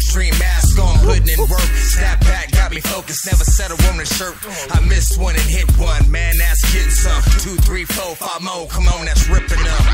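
Hip-hop background music with a rapped vocal over heavy bass.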